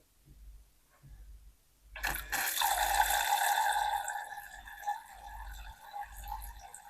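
A toy sink's faucet starts running about two seconds in, water pouring and splashing into the basin, loudest at first and then settling to a steadier, softer flow.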